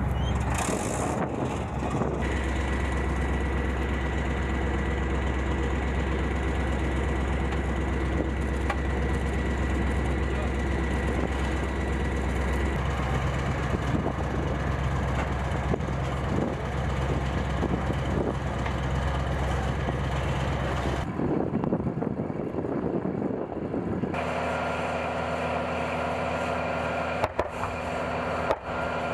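Diesel engines of tracked self-propelled howitzers running steadily with a deep hum, the sound changing with each cut. Two short sharp reports come near the end.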